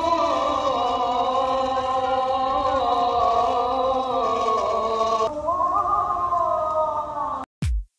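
Background music: a sustained choir-like vocal passage with long held notes. It cuts off abruptly near the end, and an electronic beat begins.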